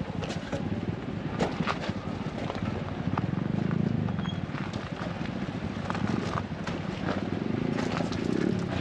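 A small motorcycle engine running while under way, a fast, low, steady putter with scattered clicks over it.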